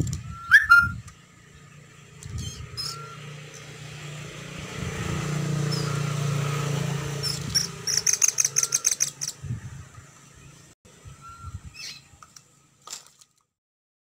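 A caged oriental magpie-robin in its water bowl, with short chirps scattered through and a quick run of about ten splashing wing-flutters about eight seconds in. A low hum swells and fades in the middle.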